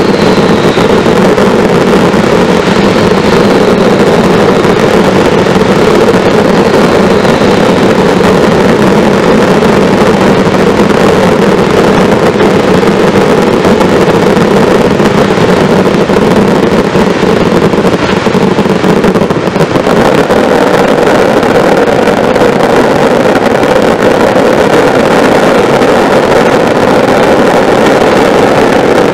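A fireworks barrage of many ground fountains and glittering crackle effects firing at once, making a very loud, steady roar of rushing sparks with no single bang standing out.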